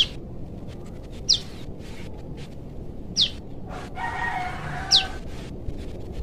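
A young prenjak lumut calling for its parent: four short, sharp high notes, each dropping quickly in pitch, spaced about one and a half to two seconds apart. A rooster crows more faintly about four seconds in.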